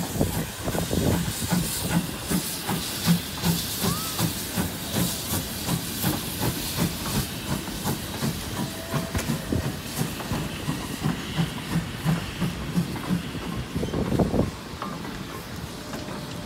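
GWR 2800 class 2-8-0 steam locomotive No. 2857 passing with a goods train: steam hiss from the engine and a steady rhythmic clatter of four-wheel goods wagons over the rail joints. The sound swells as the brake van goes by and drops off near the end.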